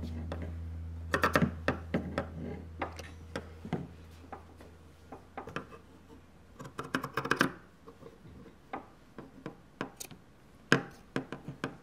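Scissors cutting through heavy fabric on a tabletop: irregular snips and clicks of the blades closing, coming in small clusters with pauses between.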